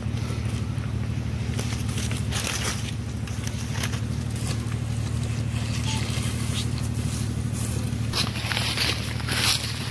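Komodo dragon tearing and biting into a wild boar carcass in mud: irregular clicks and crunches, more of them near the end. A steady low engine hum runs beneath.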